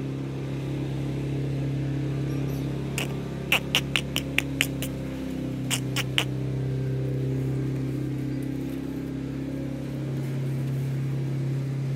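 A motor hums steadily and drops slightly in pitch about five seconds in. Over it come a quick run of short, sharp, high squeaks or clicks about three to five seconds in, and three more around six seconds.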